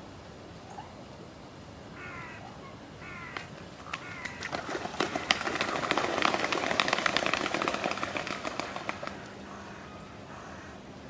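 A water bird bathing: a vigorous run of splashing and wing-beating in the water that builds from about four seconds in and dies away after about nine. It is preceded by a few short bird calls.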